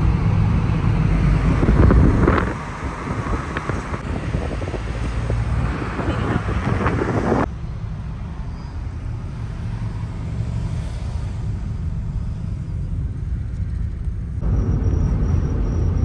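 Road and engine noise inside the cabin of a moving Toyota Roomy: a steady low rumble with tyre and wind noise. It drops abruptly about seven seconds in and comes back louder near the end.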